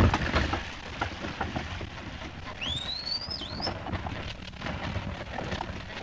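Ox wagon on the move: an irregular patter of clicks and rattles over a low rumble, with a sharp crack at the start and a single rising whistle about three seconds in.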